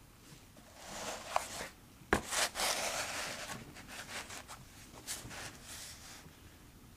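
Paper being handled: rustling and scraping for several seconds, with a sharp tap about two seconds in.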